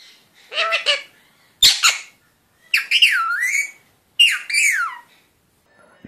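Indian ringneck parakeet calling: a short pitched call about half a second in, a harsh squawk near two seconds, then two calls that glide in pitch, the last sliding down.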